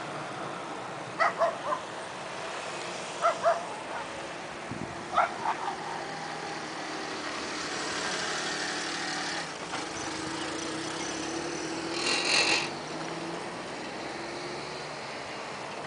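A dog barks in three short bouts of two or three barks each, spaced about two seconds apart, over the steady noise of a passing electric train. The train noise swells in the middle, and a brief loud high hiss comes near the end.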